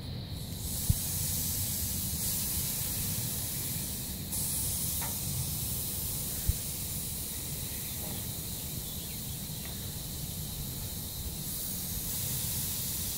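Seasoned, collard-stuffed boneless pork ribs sizzling as they are laid on a hot charcoal grill grate, a steady hiss that grows louder about half a second in and again about four seconds in as more meat goes down. Two short knocks are heard, about a second in and past the middle.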